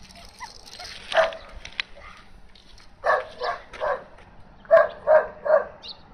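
A dog barking, high-pitched: one bark about a second in, then two runs of three quick barks.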